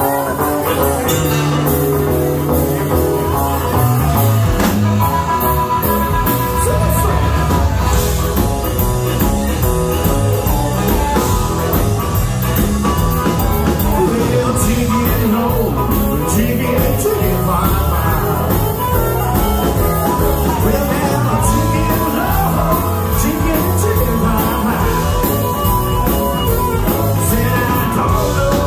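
Live blues-rock band playing: electric guitar, drums, saxophone and harmonica, with some singing over the top.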